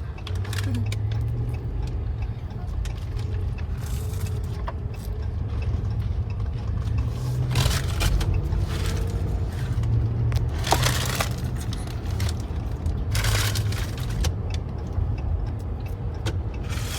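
Road and engine noise inside a moving truck's cabin: a steady low rumble, with several short louder hisses rising over it.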